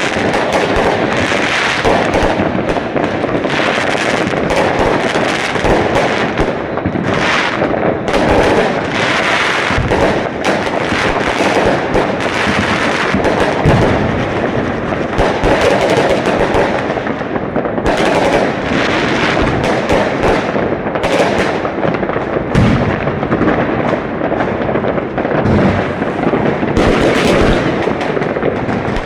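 Fireworks going off in a dense, unbroken barrage: many bangs overlapping one another, with no pause between them.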